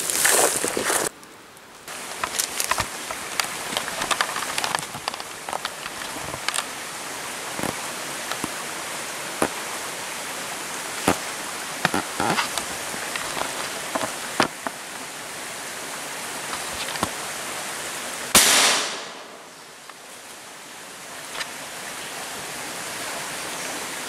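Scattered crackles and snaps of dry leaves and twigs over a steady background hiss, then a single sharp gunshot from a hunting long gun about three-quarters of the way through, dying away within half a second.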